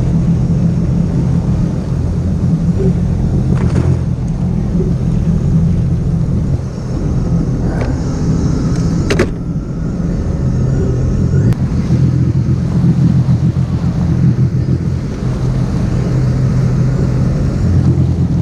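Steady low rumble of a vehicle's engine while it is moving, with a few faint brief clicks.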